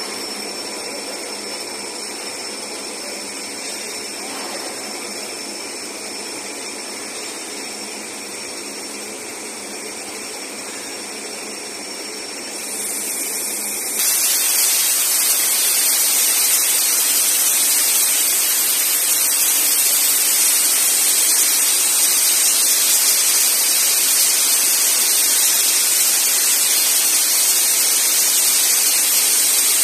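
CNC beveling cutting machine's torch hissing steadily as it cuts, the hiss growing sharply louder and brighter about fourteen seconds in.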